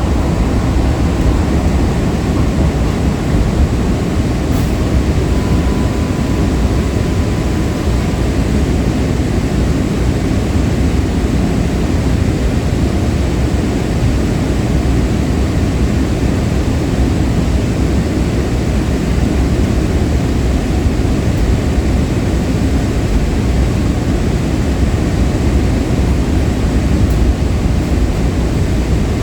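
Breda LRV3 light rail car running along the track, heard on board: a steady, loud, low running noise from the wheels on the rails and the traction equipment.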